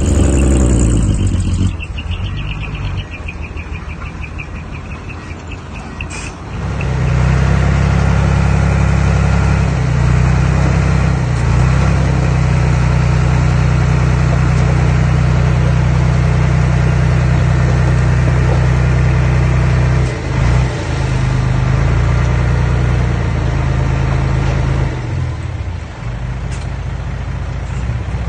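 Engine of heavy earthmoving machinery. It runs at a lower, quieter speed for the first few seconds, then speeds up about six seconds in and runs steadily under load. It dips briefly about twenty seconds in and eases off near the end.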